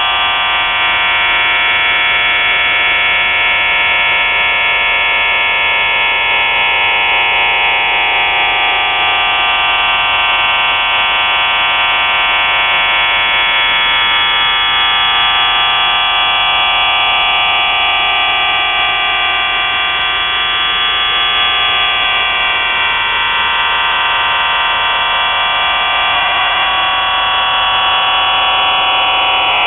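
Shortwave radio reception on 4632 kHz: a dense cluster of steady, buzzing tones over static, thin with no low end, while fainter whistles slowly glide down and up through it.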